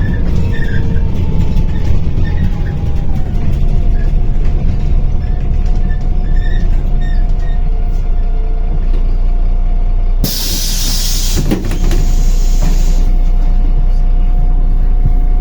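MAZ-105 city bus running, heard from inside the cabin: a low engine rumble with a transmission whine that falls in pitch and then holds steady. About ten seconds in, a loud hiss of compressed air from the bus's pneumatic system lasts about three seconds.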